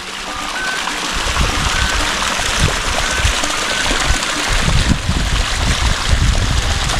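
Flowing water, a steady rushing hiss, with irregular low rumbles from about a second in.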